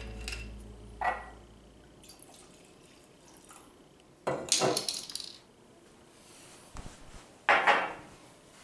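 Drink being poured from a bottle into a crystal glass, with glass clinking: one clink about a second in, then two short bursts of pouring and glass handling, about four seconds in and near the end.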